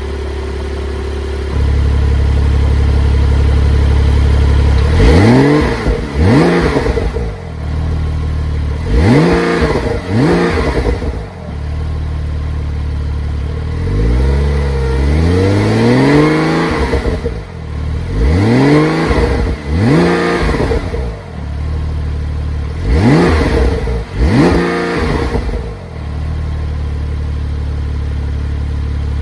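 Porsche 911 Turbo S twin-turbo flat-six, stationary, revved with the sports exhaust on. It idles, then gives quick throttle blips mostly in pairs, plus one longer rev in the middle, each time rising in pitch and falling back to idle.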